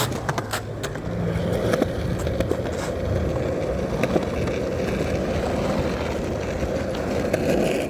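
Skateboard wheels rolling in a continuous rumble, with scattered small clicks.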